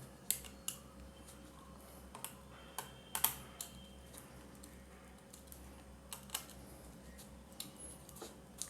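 Scattered light clicks and taps as a screwdriver works the terminal screws of a plastic three-pin plug top and the plug is handled, about a dozen small clicks at uneven intervals.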